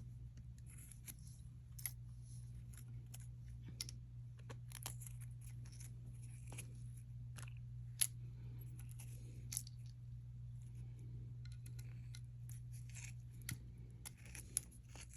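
Small costume-jewelry pieces clicking and clinking as they are handled and dropped into a pile, scattered light clicks with a sharper one about halfway through, over a steady low hum.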